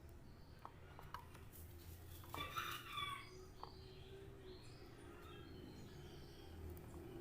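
A rooster crowing faintly, one short call about two and a half seconds in, over a low steady hum and a few faint clicks.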